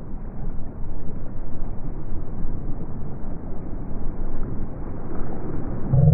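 Wind buffeting the microphone in an unsteady rumble, over small waves washing against the shoreline rocks.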